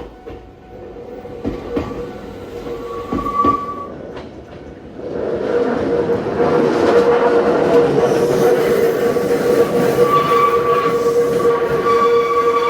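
Train on the move: a few clicks and a brief high tone at first, then about five seconds in it grows loud, with a steady rolling noise and a sustained high-pitched tone.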